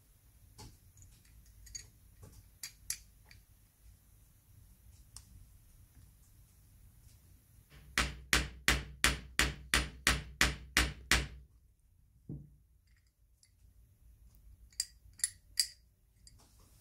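Small hammer tapping about eleven times in quick, even succession, about three taps a second, then once more about a second later. Light clicks of small metal parts being handled come before and after.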